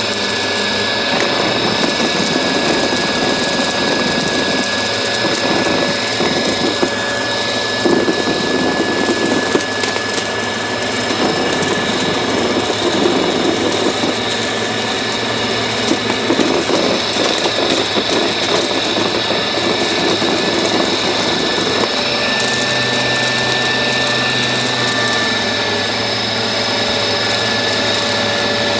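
Upright vacuum cleaner running, its motor giving a steady whine while debris crackles and crunches through the brushroll and hose. About two-thirds of the way through the motor tone shifts slightly and a low hum joins it.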